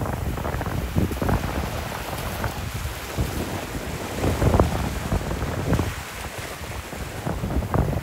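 Small waves washing up onto a sandy beach, with wind buffeting the microphone in uneven gusts.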